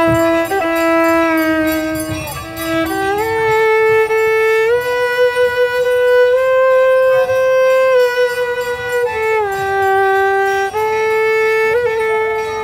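Solo violin playing a slow Catalan folk melody, long held notes joined by slides from one pitch to the next.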